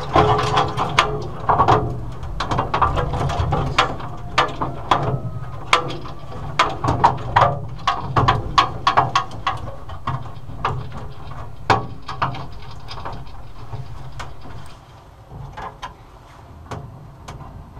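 Small metal lock and latch parts clicking and clinking as a captive-key mailbox lock and its latch are fitted into a parcel-box door by hand and with pliers. The clicks come quickly and irregularly, thin out after about twelve seconds and are quieter near the end.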